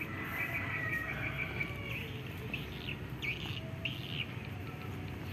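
Small birds chirping: a quick run of high chirps over the first two seconds, then a few longer calls, over a steady low background rumble.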